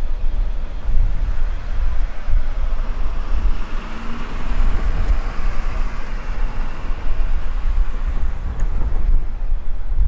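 The last cars of a CSX double-stack intermodal freight train rolling away on the rails: a steady rumble of wheels on track, with a broad rail roar that swells in the middle and eases slightly toward the end.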